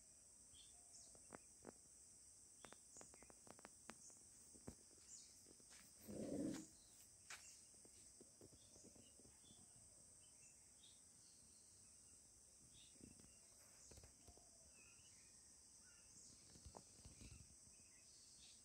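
Faint outdoor garden ambience: a steady high-pitched insect drone throughout, with scattered light clicks and a brief low muffled thump about six seconds in.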